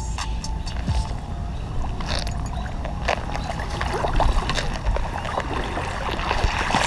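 Water splashing and sloshing as an angler wades through a shallow river, with short sharp splashes that come thicker in the second half.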